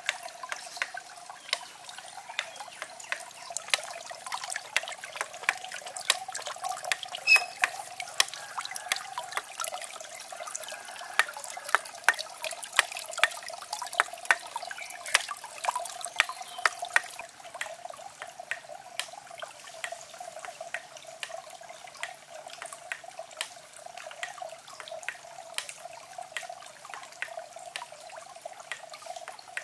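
Water trickling steadily into a small pond, with many sharp drips and splashes on top, busier in the first half.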